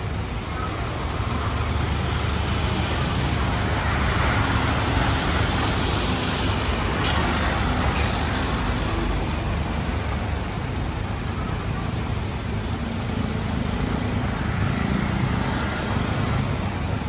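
Steady outdoor background noise: a low rumble of road traffic that swells a few seconds in, with a couple of faint clicks.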